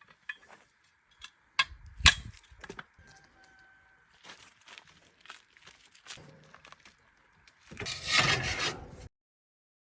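Metal repair work on a bent steel conveyor beam from a combine's transportation line: a few scattered knocks, one loud about two seconds in, then faint rubbing and a louder rasping, scraping burst near the end that cuts off abruptly.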